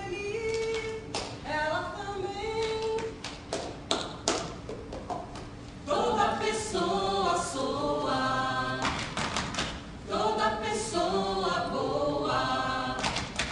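A group of voices singing a cappella in harmony, punctuated by sharp percussive taps or claps; the singing gets louder and fuller about six seconds in.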